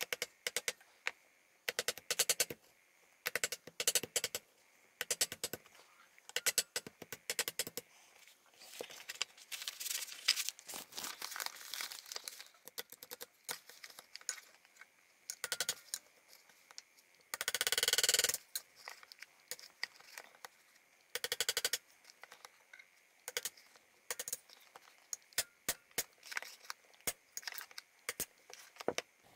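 Small hammer tapping a nail used as a makeshift punch to drive a 1/16-inch roll pin out of a rifle's rear-sight collar: quick runs of light metallic taps with pauses between them. There is a louder noisy burst lasting about a second partway through.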